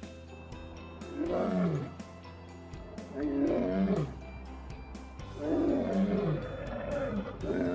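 Male lion roaring: three calls of about a second each, falling in pitch and roughly two seconds apart, with a fourth starting near the end, over background music.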